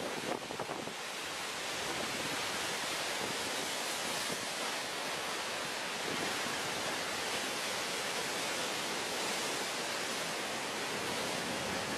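Storm waves surging against and over a seawall in a sudestada gale. Wind buffets the microphone for about the first second, then a steady, even rushing roar follows with no single crash standing out.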